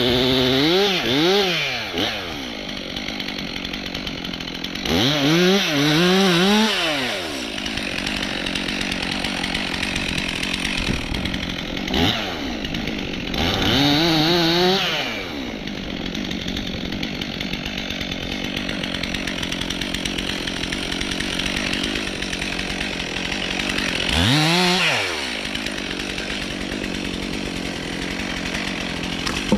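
Stihl MS 362 C two-stroke chainsaw idling steadily, throttled up four times, each burst rising in pitch and then dropping back to idle.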